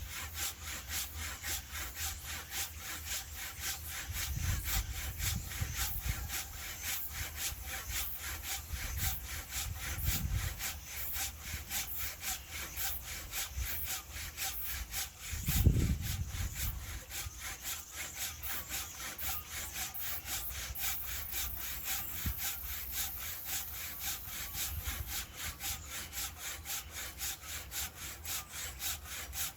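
Hand saw cutting through firewood in quick, even back-and-forth strokes. A dull thump sounds about halfway through.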